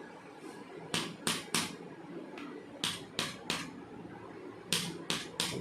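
Open hands striking a patient's body in quick sets of three, three sets in a row: sharp percussive slaps during a chiropractic treatment.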